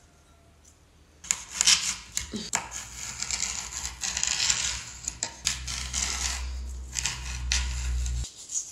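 A kitchen knife cutting and scraping through a fresh aloe vera leaf on a cutting board, a scratchy rasp with small clicks that starts about a second in. A low hum sits under the second half and stops suddenly near the end.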